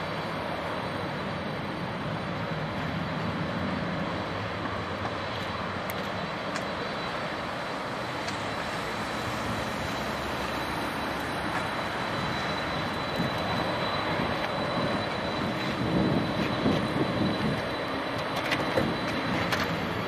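Jet engines of a Boeing 767-300ER at taxi power: a steady rushing hiss with a faint high whine, with a few louder low bumps in the last third.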